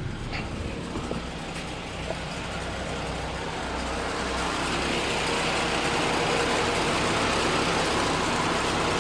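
Car engine idling steadily with its AC and headlights switched on as an electrical load. A fan's rushing hiss builds up from about two seconds in and then holds steady as the AC blower and radiator fan run.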